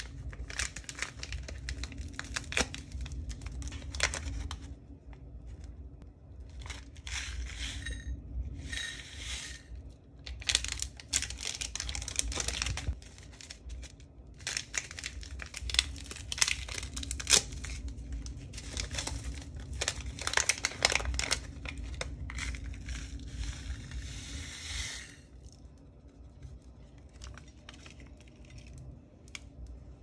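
Popping candy packets being crinkled and torn open by hand and their crystals tipped out onto a plate. There are repeated bouts of crackling wrapper noise with sharp clicks, and it goes quieter near the end.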